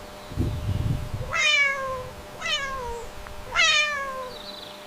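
Domestic cat meowing three times, each meow falling in pitch, after a short low rumble about half a second in.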